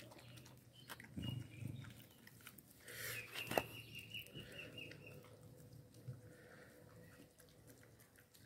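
A dog eating soft mashed sweet potato and meat from a stainless steel bowl: quiet wet chewing and licking made of many small clicks, with one sharper knock about three and a half seconds in.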